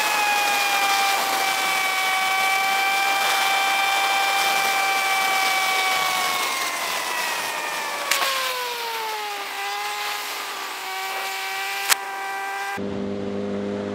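2007 Suzuki GSX-R 750's inline-four engine at highway speed, with heavy wind rush on the bike-mounted microphone. From about six seconds in, the engine note falls steadily as the bike slows, with two sharp clicks. Near the end a sudden cut brings a lower, steady engine note with far less wind.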